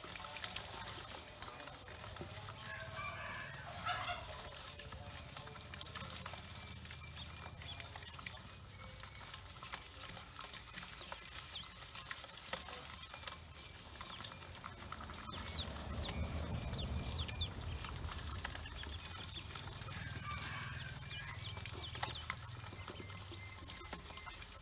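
Dozens of young ducklings peeping together, with many short high peeps overlapping throughout.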